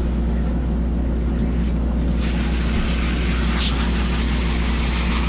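Boat engine idling, a steady low drone, with water from a deck washdown hose splashing over a fish about midway.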